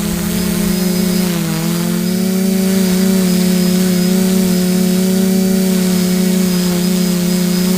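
A steady motor hum at a fixed pitch, dipping slightly about a second and a half in.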